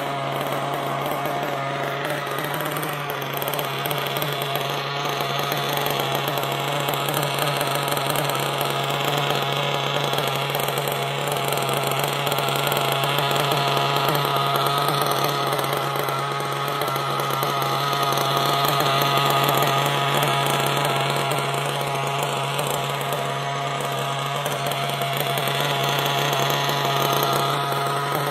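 AGAMA A215 1/8-scale nitro buggy's glow engine idling steadily while the car stands still, with a high, buzzing two-stroke note that swells slightly in loudness now and then.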